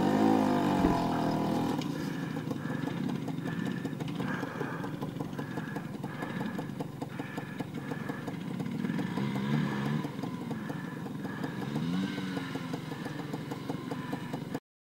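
Small two-stroke scooter engine running under way on a dirt trail, its revs rising and falling with the throttle. The sound cuts off suddenly near the end.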